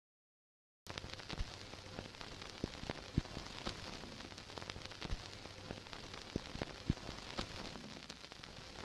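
Crackling static: a steady hiss full of irregular clicks and pops over a faint hum, cutting in suddenly about a second in.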